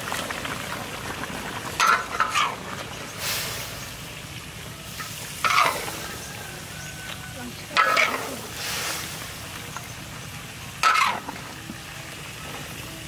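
A long metal utensil stirring green vegetable stems into a large steaming wok of fish soup over a wood fire, with a steady sizzling hiss. The utensil scrapes or clanks loudly against the wok a few times, a few seconds apart.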